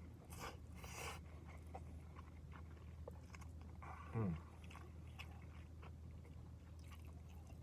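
A person chewing a mouthful of gyudon (beef and rice) with soft wet mouth clicks, mostly in the first second or so. About four seconds in there is a brief hum that falls in pitch, over a steady low hum.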